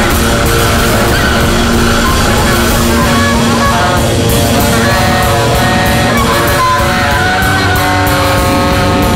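Loud, dense free-jazz noise-drone music: a steady wall of distorted sound with a constant patter of drum and cymbal hits. Over it sit held, stacked pitched tones that shift in pitch a few times.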